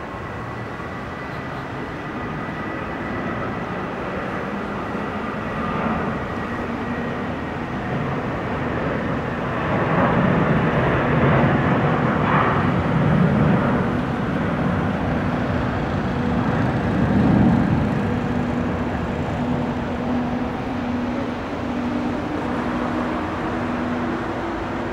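Boeing 737-800's CFM56-7B turbofan engines at takeoff thrust: a loud jet roar that builds, peaks about ten to eighteen seconds in as the airliner passes, then eases a little, with a thin high whine early on.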